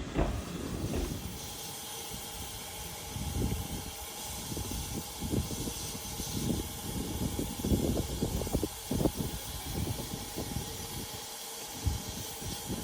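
Steam locomotive hissing steam, with irregular low thumps and rumbles.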